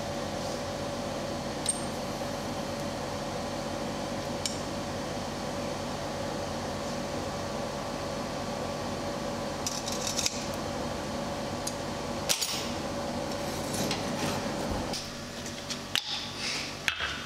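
Coal forge's air blower running with a steady hum while steel heats in the fire, with occasional light metallic clinks of tongs and bar stock. The hum drops away about fifteen seconds in, and a few more clinks of metal follow near the end.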